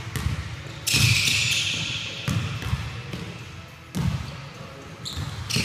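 Basketball thudding on a hardwood gym court, several separate bounces that echo in the large hall, with a bright, high sound that starts sharply about a second in and fades, and another near the end.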